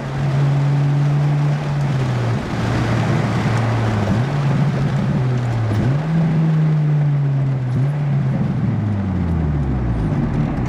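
Acura four-cylinder VTEC engine heard from inside the cabin of a manual car, its note sagging and jumping back up several times as the driver works the gears. Near the end it falls steadily as the car slows.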